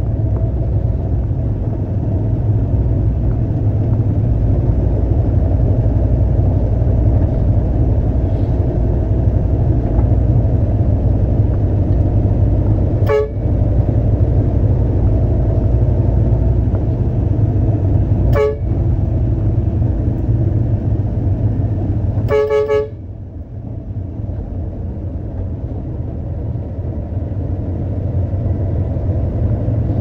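Heavy concrete truck engine running steadily with a low rumble, while a vehicle horn gives three short toots, a few seconds apart, the last a little longer. The engine noise drops just after the third toot and builds back up toward the end.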